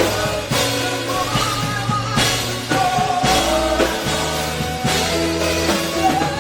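Live gospel band music: a drum kit keeps a steady beat under a sustained bass, while a lead melody line glides up and down above them.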